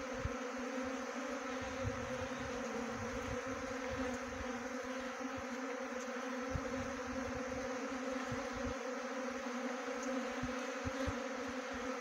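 Steady buzzing hum of many honey bees flying around a wooden bee box, a dense wingbeat drone that holds level throughout.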